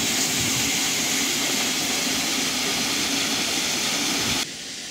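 Steady rush of flowing water in a rocky stream gorge. Near the end it drops suddenly to a softer rush.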